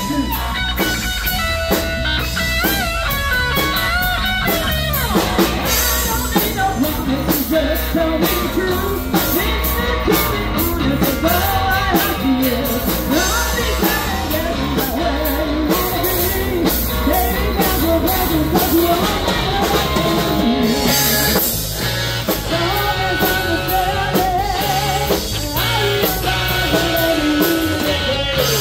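Live rock band playing: an electric guitar lead over drums and bass for the first few seconds, then a woman singing lead over the band.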